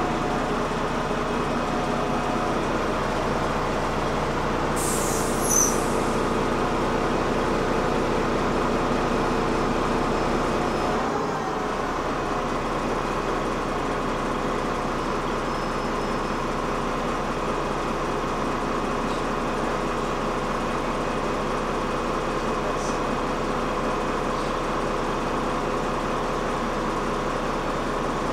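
City bus running, heard from inside the cabin: a steady engine and running drone with whining tones. A brief high-pitched squeal comes about five seconds in, and about eleven seconds in the engine note changes and the sound drops a little.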